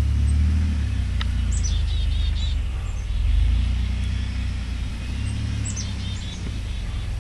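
A 4x4 truck's engine running steadily at low revs off to one side, swelling slightly twice. Birds chirp in two short bursts over it.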